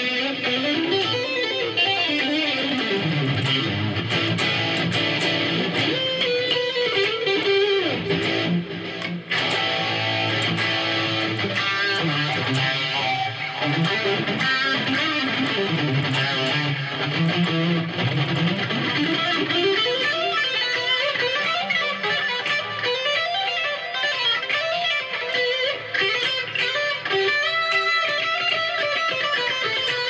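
LUXARS S-G62 headless electric guitar played without a pause in a sound test, with picked runs that climb and fall in pitch. There is a brief break about nine seconds in.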